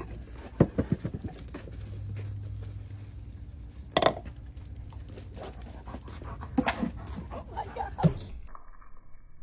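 A dog panting, with several short, sudden sounds over it.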